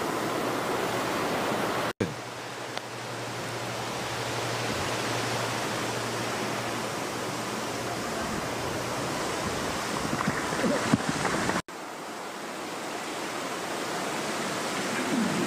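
Steady outdoor hiss of wind and open-air ambience on an outdoor microphone, broken twice by abrupt momentary dropouts.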